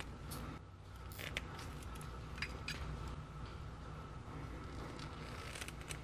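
Faint clicks and scrapes of a hand crimping tool squeezing insulated bullet connectors onto a wire, over a low steady hum.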